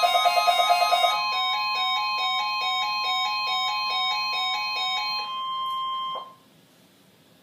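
Electronic Emergency Alert System-style attention tones. A rapidly pulsing tone gives way about a second in to a steady high beep over a lower tone that steps back and forth between two pitches. All of it cuts off abruptly with a click about six seconds in, leaving near-silent hiss.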